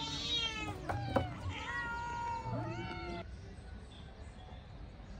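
Several cats meowing over one another in overlapping, gliding calls, which stop about three seconds in.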